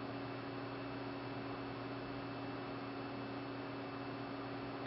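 Steady electrical hum with an even hiss, unchanging throughout, with no distinct events.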